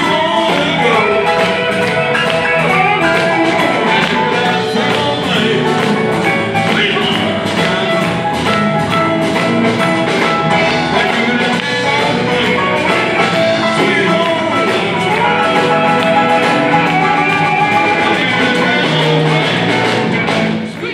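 Live blues band playing: electric guitar, bass guitar, drums and keyboard, amplified through a hall's PA.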